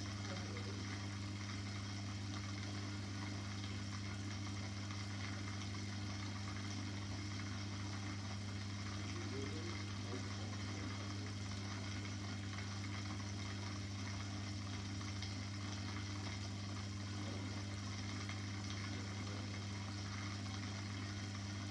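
Aquarium pump humming steadily, with an even watery hiss over it.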